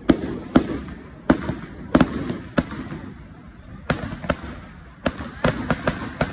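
Aerial fireworks bursting in quick, irregular succession: about a dozen sharp bangs, each trailed by a short rumbling echo, with a lull of about a second in the middle before a fast cluster of bangs near the end.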